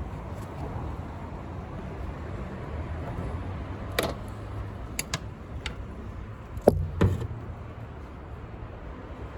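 A few sharp clicks and clinks, then two louder knocks about seven seconds in, over a steady low hum: tools and parts being handled during the repair.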